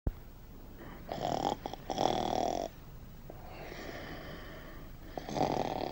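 A man snoring in his sleep: a few snores in a row, with a softer one in the middle.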